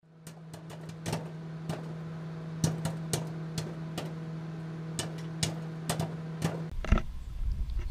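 Popcorn popping: about fifteen sharp pops at irregular intervals over a steady low hum. Near the end the hum cuts off and a low rumble takes over.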